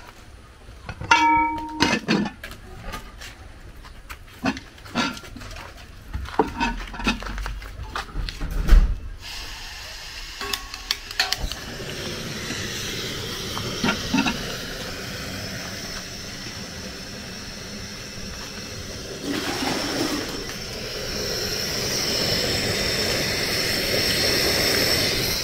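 Knocks and clinks of a pot and cooking utensils, then a steady hiss from a cooking pot on the heat that grows louder near the end.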